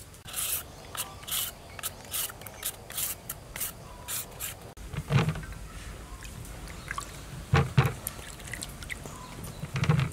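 Metal vegetable peeler scraping the skin off a cucumber in quick, short strokes, about two to three a second. About halfway through this gives way to a few dull thuds, once and then twice close together near 8 s and again near the end, as cucumbers and tomatoes are dropped into a plastic colander.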